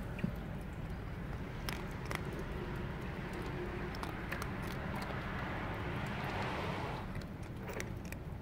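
Cat eating dry kibble: irregular sharp crunches and clicks as it chews, over a steady low rumble.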